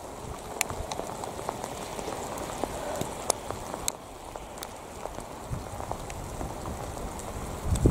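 Steady patter of rain with scattered sharp drop ticks, and a brief low thump near the end.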